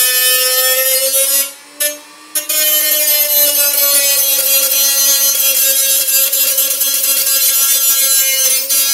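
Black & Decker RT18KA corded rotary tool running at high speed, its small cutting disc grinding against the thin steel wall of a tin can: a steady high whine over a harsh hiss. The sound cuts out briefly about two seconds in, then resumes.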